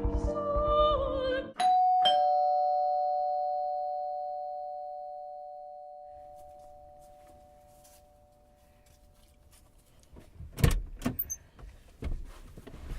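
Two-tone ding-dong doorbell chime: a higher note, then a lower one half a second later, both ringing on and fading slowly over several seconds. A few thuds near the end.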